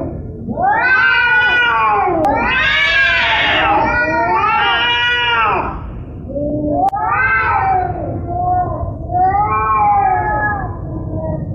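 Domestic cat screaming: a series of long, drawn-out yowls, each rising and then falling in pitch, with short breaks between them.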